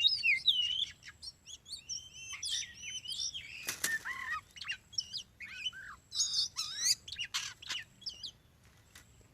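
Oriental magpie-robin singing a rapid, varied run of whistled notes and slurs, with a short rustling burst about four seconds in. The song stops about a second before the end.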